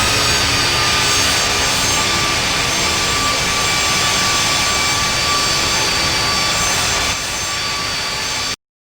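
Boeing 757 jet engines running steadily at takeoff power, a dense rush with whining tones that drift slightly lower. The level drops a step about seven seconds in, then the sound cuts off abruptly.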